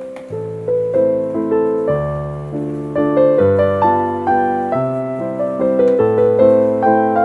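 Background piano music: a gentle melody of single notes over low chords that change about once a second.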